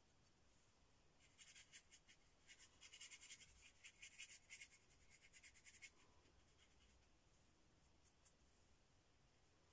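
Flat bristle brush stroking acrylic paint onto a thickly textured painting surface: a quick run of short, faint scratchy strokes from about one second in, stopping at about six seconds.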